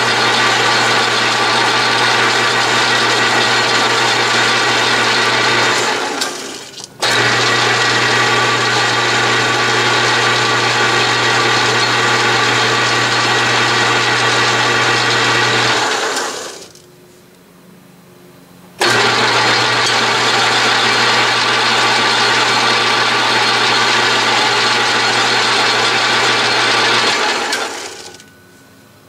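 Atlas/Craftsman 12-inch metal lathe running steadily with motor hum and gear whine while cutting a thread, stopped between passes: three times it winds down over about a second, and twice it starts up again abruptly, about seven and nineteen seconds in.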